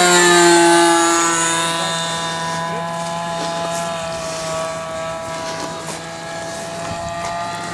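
Radio-controlled model airplane's motor and propeller droning as it flies past low. The pitch drops as it passes, then the sound holds steady and fades as the plane climbs away.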